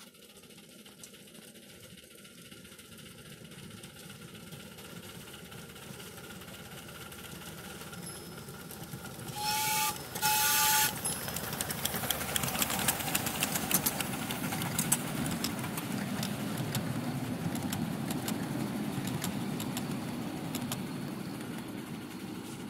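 1½-inch-scale live steam locomotive, CGW 319, approaching and passing close by, growing louder. It gives two short whistle blasts about ten seconds in, then a rapid clatter of exhaust and running gear that eases off toward the end.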